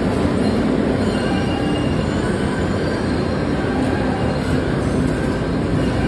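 Boston Green Line light-rail train rolling past along an underground platform: a steady rumble of wheels on rail with a faint, thin wheel squeal over it.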